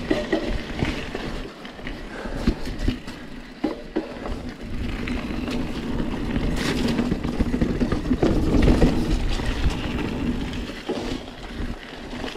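Santa Cruz Hightower 29er mountain bike ridden over a dirt forest trail: a continuous rumble of tyres on dirt and rattling of the bike, with a few sharp knocks over rough ground.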